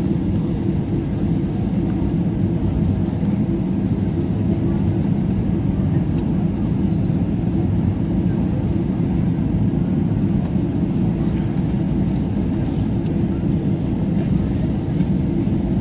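Steady low rumble of cabin noise inside a Boeing 777-300ER airliner, even in level throughout, with a few faint ticks.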